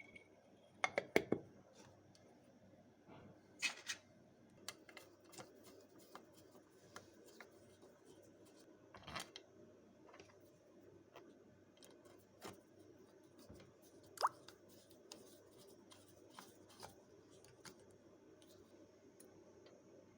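Light clicks and taps of small parts and tools being handled, with a quick cluster of several about a second in, then scattered single ones.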